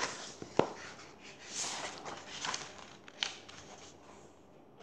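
A children's picture book being handled and put down: pages and cover rustling in a few short swishes, with a couple of light knocks.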